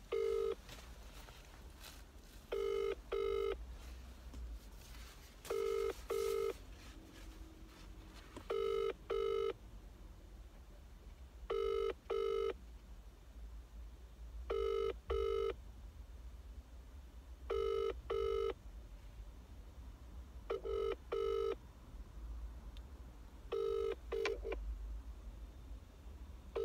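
Phone ringing tone played through a smartphone's loudspeaker on speakerphone: the British double ring, two short buzzes repeated about every three seconds, while the outgoing call goes unanswered.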